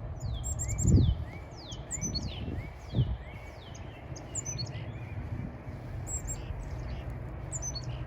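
Small songbirds calling: a quick series of high, thin notes that slide down in pitch, mixed with short rising chirps. Two low thumps come about a second in and about three seconds in.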